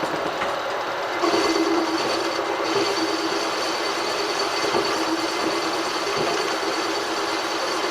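Metal-cutting machine tool running steadily while boring out a hole, with a low steady tone and a thin high whine that grow louder about a second in.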